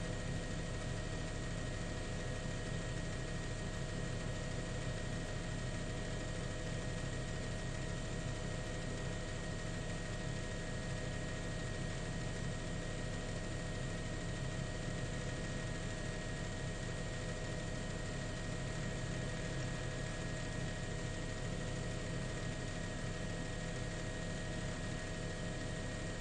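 Steady helicopter engine and rotor noise: an unchanging drone with a couple of constant whining tones over it.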